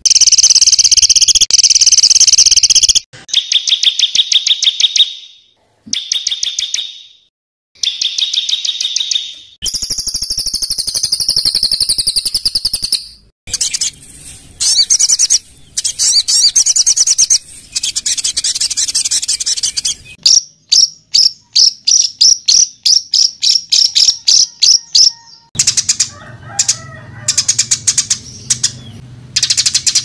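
Recorded songbird song of the harsh, rapid-fire kind used to train cage birds: loud high trills and warbled phrases in spliced segments that cut off abruptly. Midway they give way to a fast string of sharp repeated notes, about five a second.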